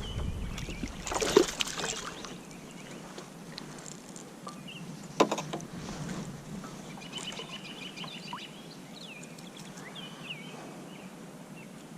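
Kayak on the water: a brief splash-like rush about a second in and one sharp knock on the hull about five seconds in, with small birds chirping throughout and a quick trill about seven seconds in.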